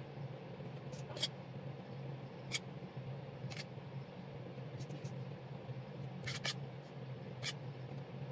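Metal cake spatula scraping frosting on a cake, in about ten short, irregular strokes, over a steady low hum.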